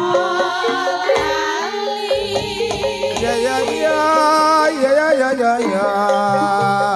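Female sinden voices singing a slow Javanese langgam melody together into microphones, their pitch wavering with vibrato, over the held tones of a karawitan (gamelan) ensemble.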